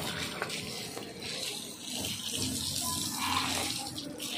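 Water from a garden hose spraying and splashing onto wet brick paving, a steady rush, as the paving is washed clear of dirt and dust.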